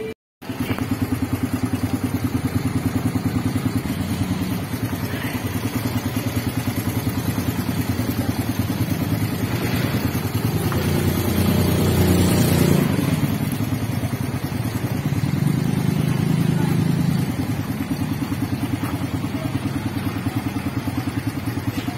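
Suzuki Raider 150's single-cylinder DOHC four-stroke engine idling with a steady, rapid pulse, a little louder for a few seconds around the middle.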